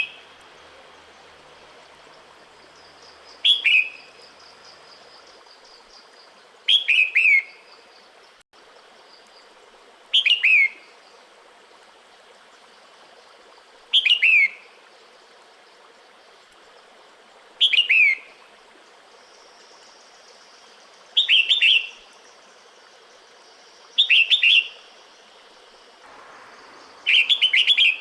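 Female red-whiskered bulbul calling to a male in the breeding season: short bursts of quick, falling whistled notes, repeated about every three to four seconds, over a faint steady hiss.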